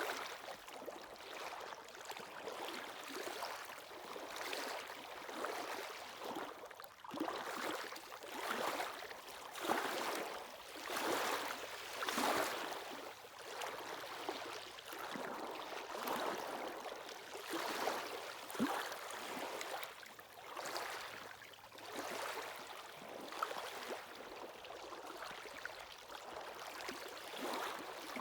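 Sea waves washing onto the shore, an unbroken wash of water rising and falling in irregular surges every second or two.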